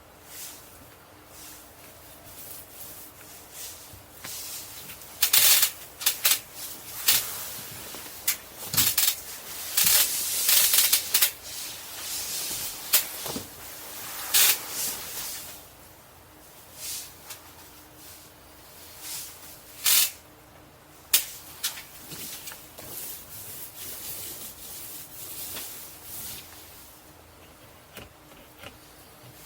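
Paintbrush scrubbing thick textured bed liner coating onto a camper's wall in irregular scratchy strokes, heaviest in the first half and thinning out later.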